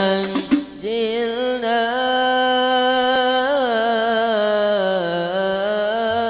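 Rebana frame drums strike a few beats, then drop out under a second in. A voice then holds one long sung vowel of a qasidah (sholawat) melody, its pitch turning in slow ornaments.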